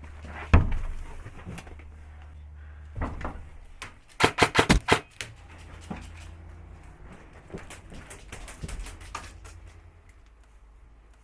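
An airsoft electric rifle (AEG) firing. A single sharp shot comes about half a second in and another near three seconds, then a quick run of about six shots at roughly eight a second about four seconds in, and a few fainter cracks later.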